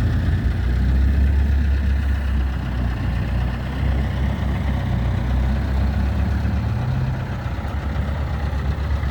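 Engine of a six-wheeled Khishchnik all-terrain vehicle running steadily at low revs, a low drone with no sharp changes.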